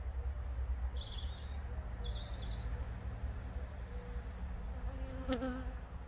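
Honeybees buzzing around an opened hive, a steady hum with a bee passing close by about five seconds in. A sharp click sounds at the same moment.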